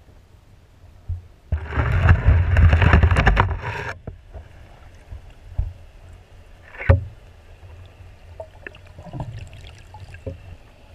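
Muffled underwater noise through a GoPro Hero3+ dive housing: a loud rushing of moving water for about two seconds that cuts off suddenly, then a few scattered knocks and clicks from handling.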